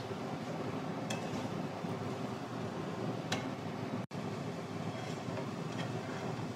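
Steady low-pitched kitchen noise around a frying pan of potatoes and chickpeas, with a few faint clicks of a slotted spatula against the nonstick pan. The sound cuts out for an instant about four seconds in.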